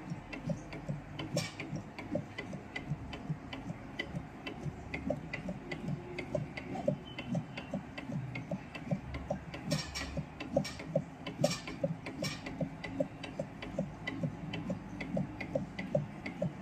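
Automatic soldering machine at work: a steady mechanical ticking, about three ticks a second, from its motion and solder-feed mechanism, over a low machine hum. A few sharper clicks come about two-thirds of the way through.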